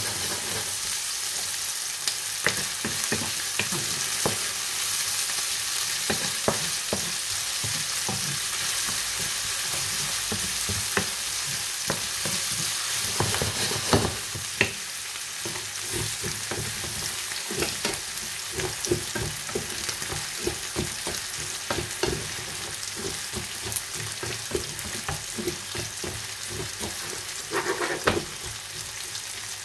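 Food sizzling as it fries in a pan, with a steady hiss. A utensil stirring it knocks and scrapes against the pan over and over, with the loudest knock about halfway through.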